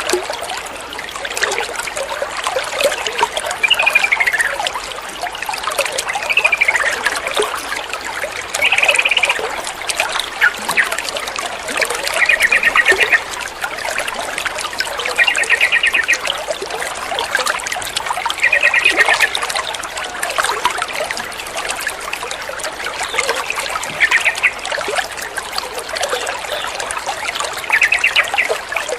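Yellow-vented bulbul (trucukan) calling over steadily trickling water. Its first notes are short falling slurs; from about eight seconds in come short buzzy, chattering phrases every two to four seconds.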